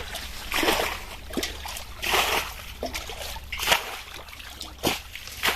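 Hands splashing and sloshing in shallow, muddy pond water while groping for fish, about five separate splashes a second or so apart.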